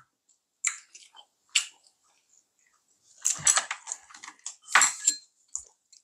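Eating at a table: close-up chewing and mouth sounds mixed with light clicks of chopsticks and spoons on dishes, coming as a few short, separate sounds with quiet gaps between.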